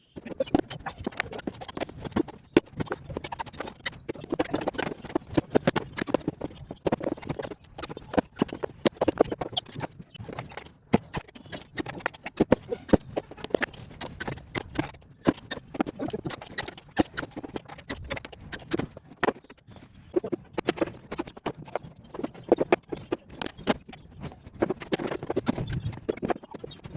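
Rapid, irregular knocking and tapping on wood, several sharp knocks a second, starting abruptly.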